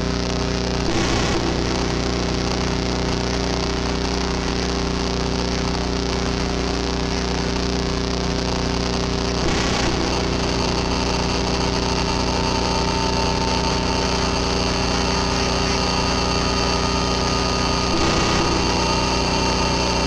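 Home-built analog synthesizers run through a Boss GT-8 effects unit, playing a dense electronic drone/noise texture: many steady buzzing tones held over a wash of hiss, with a fast low pulsing underneath. It swells briefly about a second in, again near halfway and near the end.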